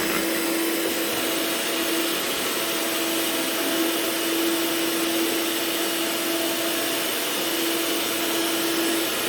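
Electric mixer motor running steadily with an even whine, its beaters whipping instant coffee, sugar and boiling water into a thick cream.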